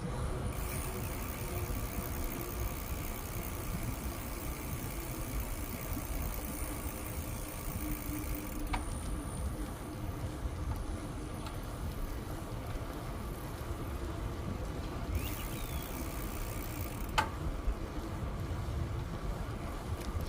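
Steady low rumble of a bicycle ride along a paved trail, bicycle tyres rolling with wind on the microphone, with two sharp clicks about nine and seventeen seconds in.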